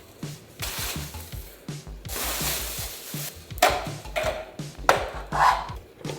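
Packaging being handled: rustling and rubbing, with a few sharp knocks past the middle, over background music with a steady bass beat.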